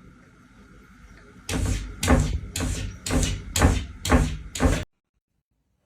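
Repeated heavy knocking or banging, about six blows roughly two a second, that stops abruptly.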